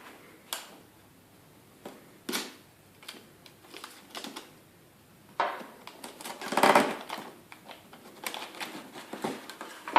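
A knife cutting open the packaging of a boxed laptop: a few sharp clicks, then a scratchy, crackling stretch of slicing and packaging rustle about halfway through, with lighter crackling after.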